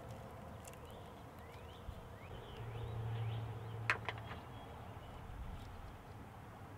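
Quiet outdoor background with small birds chirping faintly. A sharp plastic click comes about four seconds in as the LED third brake light housing is pressed into its opening in the truck's cab roof.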